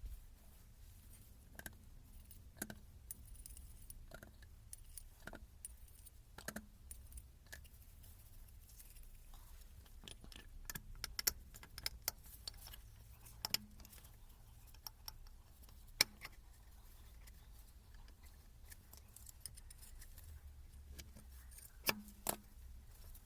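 Irregular light clicks and metallic clinks of small parts and hand tools being handled, over a faint low hum. The clicks come in a few denser clusters, with the sharpest near the end.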